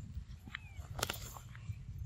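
Rustling and light steps in leafy undergrowth over a steady low rumble, with a sharp rustle about a second in and a brief high chirp falling in pitch about half a second in.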